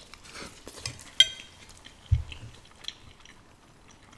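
Eating sounds from a mukbang of wide noodles. About a second in, a fork clinks once against the dish with a short ringing tone. A second later comes a dull low thump, with soft slurping and chewing around them.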